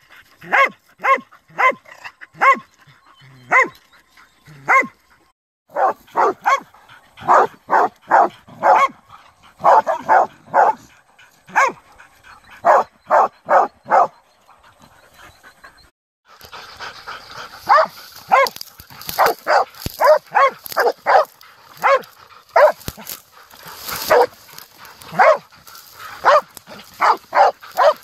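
Pig dogs bailing: quick, repeated barks at an animal held at bay, several a second in runs. The barking breaks off abruptly about halfway through, then starts again over a steady hiss.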